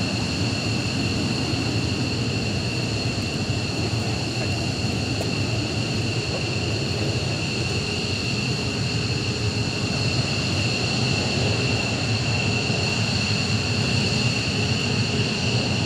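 Two F-15J Eagle fighters' twin turbofan engines running at taxi power: a steady jet whine over a continuous rumble.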